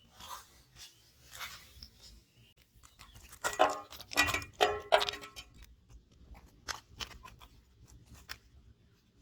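Three loud animal calls in quick succession about halfway through, followed by scattered light clicks.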